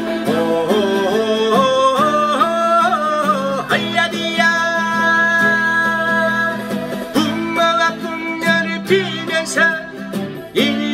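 A man singing, some notes held long with vibrato, while he strums and picks chords on a Crafter acoustic guitar.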